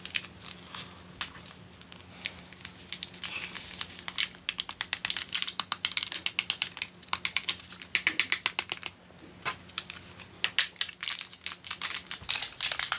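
An instant-coffee stick sachet being opened and shaken out over a mug: its plastic wrapper crinkles and crackles in quick runs of small clicks.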